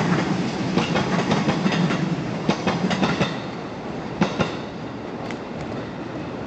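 A train's wheels clattering rapidly over rail joints, loud for the first three seconds or so and then fading as it moves away. Two sharp knocks come about four seconds in.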